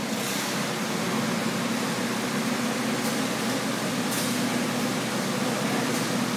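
Farm tractor engine running steadily at low speed as the tractor drives slowly, with a few short bursts of hiss in between.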